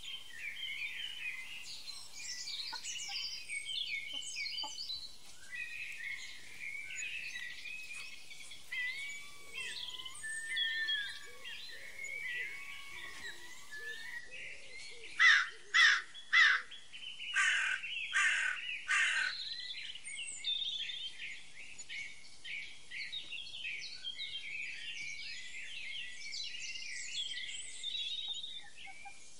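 Birdsong: many small birds chirping and twittering continuously, with three loud harsh calls in quick succession about halfway through and a few more just after.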